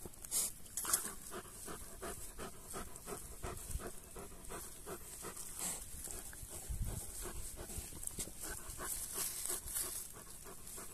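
Large Central Asian Shepherd (alabai) dog panting steadily, about three breaths a second, while a hand handles its muzzle. Brief rustles of fur and grass come near the start and again near the end.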